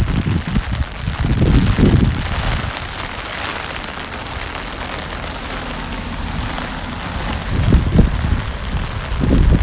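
Rain pattering steadily on an umbrella overhead. Irregular low rumbling bursts, like wind buffeting the microphone, come about a second in and again near the end.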